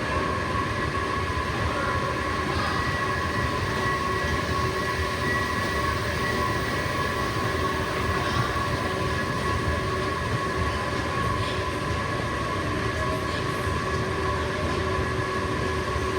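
Very long metro-station escalator running: a steady machine hum with a few constant whining tones over it.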